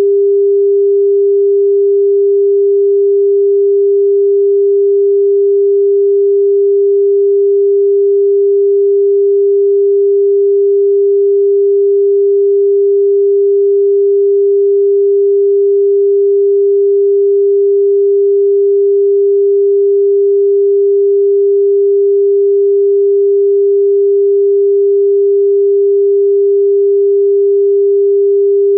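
New Zealand telephone dial tone: a single steady 400 Hz tone held continuously, without breaks, signalling that the line is ready to dial.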